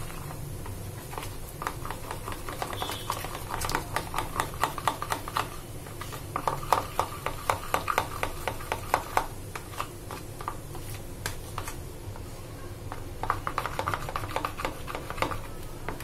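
Metal spoon whisking thick gram-flour batter in a bowl: quick clicking of the spoon against the bowl, in three runs of a few seconds with short pauses between.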